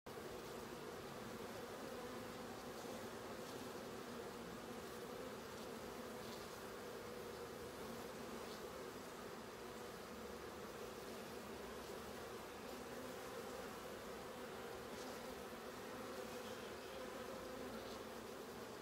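Many honeybees flying around the entrance of a Langstroth hive, a steady, even hum.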